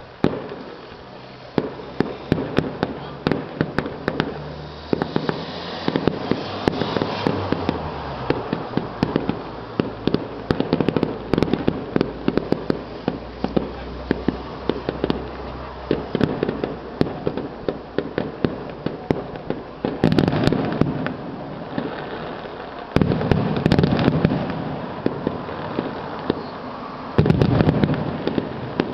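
Fireworks display: a dense, continuous run of bangs and crackles, with louder salvos starting about 20, 23 and 27 seconds in.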